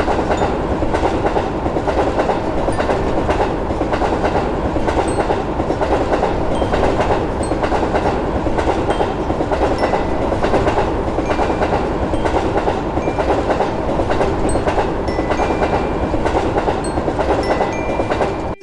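A train running past on the rails: a steady, loud rumble with repeated wheel clacks, cutting off suddenly at the end.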